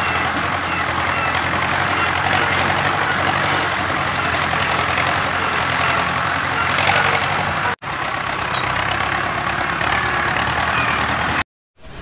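A tractor engine running steadily. It breaks off for a moment about two-thirds of the way through and cuts off just before the end.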